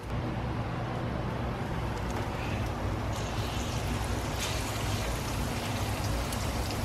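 Breaded deer heart nuggets frying in hot oil in a cast-iron skillet: a steady sizzle.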